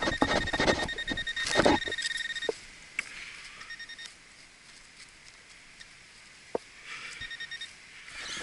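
A metal detector gives a rapid pulsing beep at one steady pitch over a buried target, with scraping and knocking from digging in the soil during the first two seconds. Two shorter bursts of the same beep come a little later.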